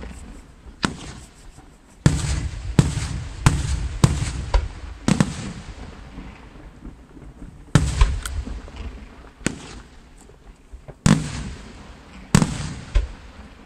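Aerial firework shells bursting one after another: about a dozen sharp bangs at irregular intervals, each trailed by a low rumble.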